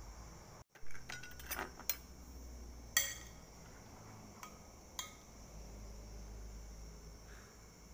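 A few sharp clinks of a utensil against a ceramic noodle bowl, the loudest about three seconds in, with lighter taps before and after it.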